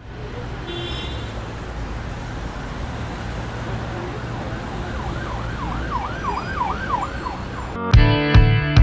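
City traffic noise with an emergency vehicle siren sweeping rapidly up and down, about three times a second, from about five seconds in. Loud music with a strong beat cuts in near the end.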